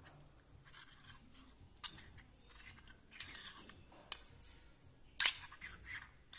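Steel spoon stirring custard powder and milk into a paste in a ceramic bowl: soft scraping with a few light clicks of the spoon against the bowl, the sharpest a little after five seconds in.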